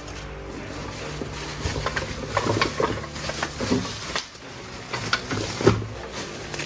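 Plastic toy gun parts and packaging being handled: irregular clicks, knocks and rustling.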